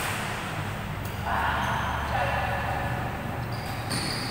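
Badminton rally: rackets striking the shuttlecock, a sharp hit at the start and another about four seconds in, with squeaks of shoes on the court just before the second hit.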